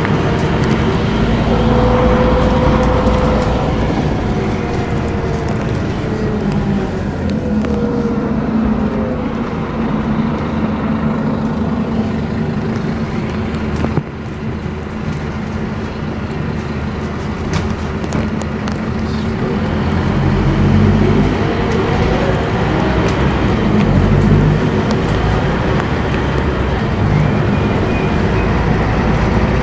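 Inside a moving Scania K230UB city bus: steady diesel engine drone and road noise. The engine note falls away as the bus eases off, then climbs again as it pulls away and accelerates about two-thirds of the way through.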